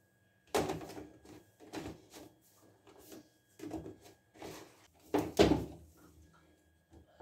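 Pink plastic basket and its perforated plastic lid being handled: the lid fitted on and the basket lifted and stacked, giving a string of light plastic knocks and rattles, the loudest about five seconds in.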